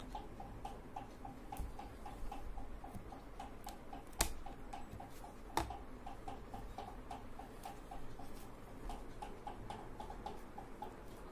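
A steady, even train of short pitched pips, about four a second, with two sharp knocks a second and a half apart near the middle as stainless door sill plates are handled.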